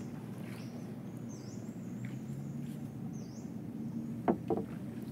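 Outdoor woodland ambience: short high bird chirps, each dipping and rising again, repeat every second or so over a low steady hum. Two sharp knocks come close together near the end.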